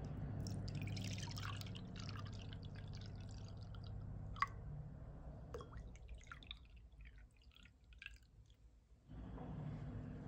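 Brewed liquid draining through the valve of a bottom-release brewer into a glass mug: a soft, crackly trickle at first, a sharp clink about four and a half seconds in, then thinning to scattered drips. A low steady hum runs underneath, stopping for a couple of seconds near the end.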